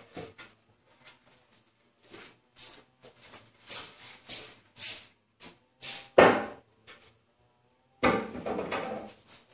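Scattered knocks and clatter of objects being handled, the loudest knock about six seconds in, followed by a rough, noisy stretch of about a second and a half near the end.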